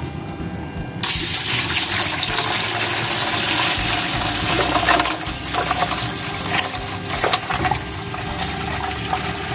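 About two litres of water poured in a steady stream into a large steel pan, splashing through a perforated stainless-steel basket of whole spices. The pour starts about a second in and is a little softer in the second half.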